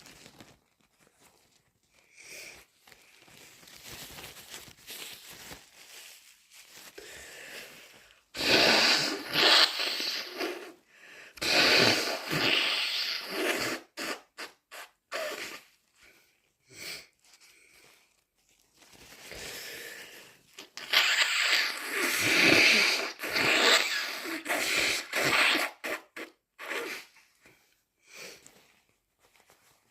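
A person congested with a bad cold blowing their nose hard and wetly, in two bouts of several long, loud blows about ten seconds apart. Quieter breathing comes before the first bout.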